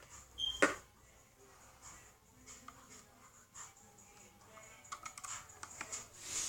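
Light clicks and taps from handling an HP laptop's plastic case and parts during reassembly, with one sharper click about half a second in and a quick run of small clicks near the end.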